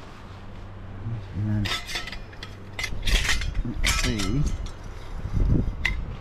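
Stainless-steel parts of a wood-burning camping stove clinking and rattling against each other as they are picked up and handled, in a cluster of knocks about two seconds in and a single clink near the end. Wind rumbles on the microphone underneath.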